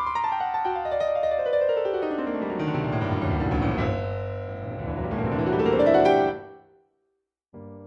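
Background piano music: a fast cascade of notes running down from high to low, then a run climbing back up, breaking off into a short silence before a new chord sounds near the end.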